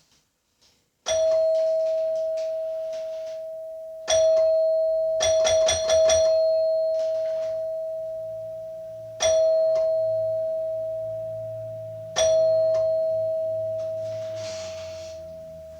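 Doorbell chime ringing a single steady tone, struck again and again with each ring fading slowly: once about a second in, again about three seconds later, then a quick flurry of five or six strikes, then two more spaced strikes.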